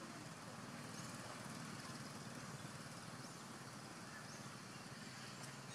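Steady, faint outdoor background noise, with a few short, faint high chirps.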